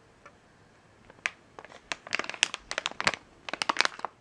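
A sealed LEGO minifigure packet crinkling as it is picked up and squeezed in the hands. Sharp crackles start about a second in and come thick and fast through the second half.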